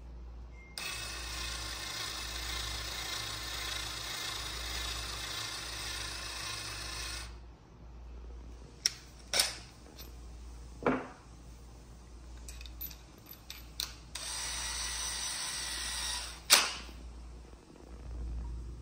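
Cordless drill spinning a countersink bit, chamfering a screw hole in a metal box: one steady run of about six seconds, then a pause with a few sharp clicks and taps, then a shorter run of about two seconds that ends in a sharp click.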